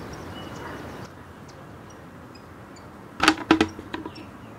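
A few sharp metallic clanks in quick succession about three seconds in, then some lighter clicks: a galvanized metal bucket being picked up and handled.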